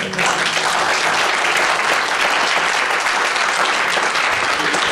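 Audience applauding steadily: a large crowd clapping at the end of a lecture.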